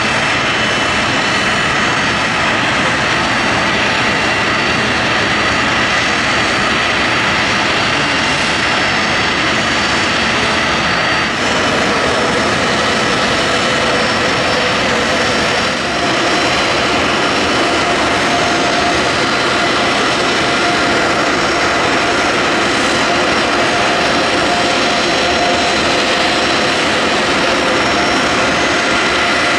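The Boeing 747SP's Pratt & Whitney JT9D turbofan engines running at low ground thrust: a steady rush with several high, steady whining tones from the fans.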